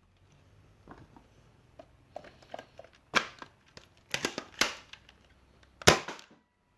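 Plastic clicks and clacks of a stock Nerf Rival Knockout being loaded and primed, then one sharp snap of the shot about six seconds in.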